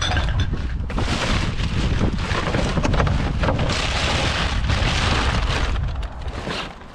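Plastic bags and bottles crinkling and rustling as a hand rummages through rubbish in a wheelie bin, over a low rumble of wind on the microphone. The crinkling is densest in the middle, and the sound drops away just before the end.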